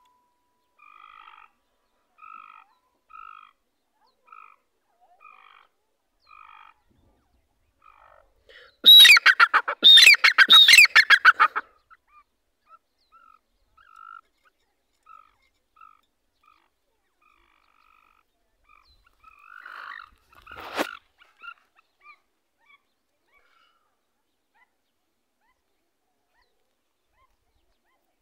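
Grey francolin calling: soft single notes about once a second, then about three seconds of loud, rapid, ringing call notes, then soft notes again. A single sharp knock about twenty seconds in.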